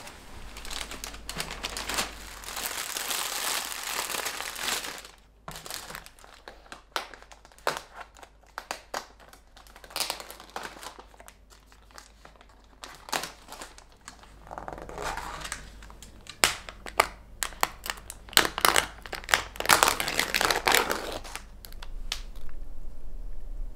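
Thin plastic bag and cling wrap on disposable takeout containers crinkling and rustling as they are handled and unwrapped, with light clicks and taps of the plastic containers and lids. A long rustle comes in the first few seconds, scattered clicks follow, and more crinkling comes in the second half.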